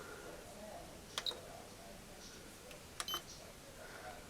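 Buttons pressed on a Melodix chime unit's programmable timer while setting its schedule: a click with a short high beep about a second in, and another click and beep about three seconds in.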